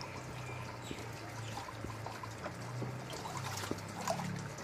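Water trickling and sloshing in a catfish tank as it is stirred with a stick and a dip net, the water churning more near the end, over a low steady hum.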